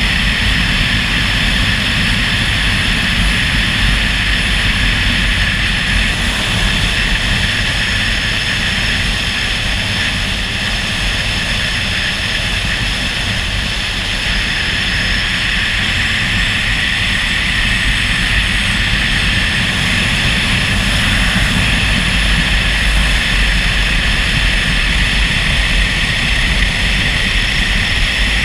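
Motorcycle cruising steadily at road speed: a low engine drone under the rush of wind on the microphone.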